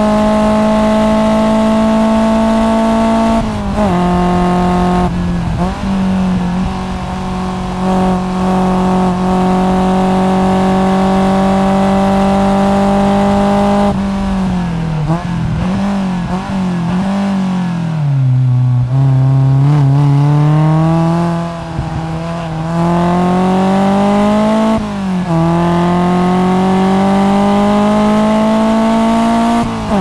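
BMW E30 M3 Sport Evolution's four-cylinder engine at full throttle on track, heard from inside the car with its intake and exhaust. It pulls up through the revs and upshifts about three and a half seconds in, then pulls a long gear. Around halfway it falls away under braking with blipped downshifts, then accelerates hard again, upshifting about 25 seconds in and again at the very end.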